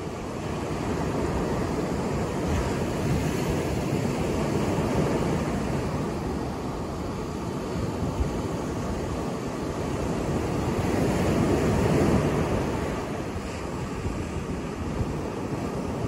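Ocean surf: waves breaking and washing up a sandy beach, a continuous rushing that swells twice and is loudest about twelve seconds in.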